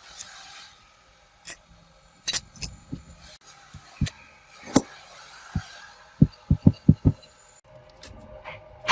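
Workshop handling of metal parts: scattered knocks and clinks, then a quick run of about six light taps between six and seven seconds in.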